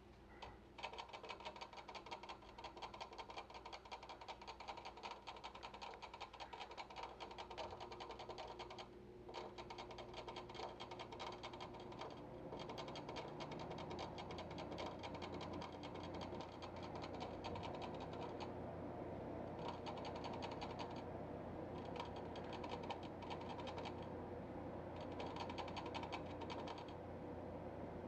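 A hamster chewing and gnawing food: very fast, fine crunching clicks in long runs, broken by a few short pauses.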